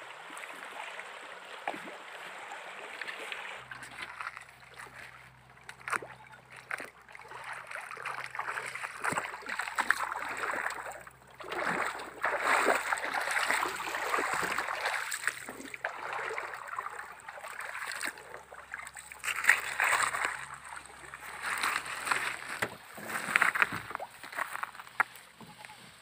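Shallow stream water splashing and sloshing unevenly, with many short splashes and knocks as it swells and fades. A faint steady low hum runs underneath through most of it.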